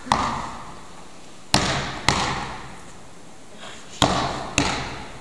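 Basketball bouncing on a hardwood gym floor: about five separate bounces, loosely in pairs, each ringing out in the echo of the large gym.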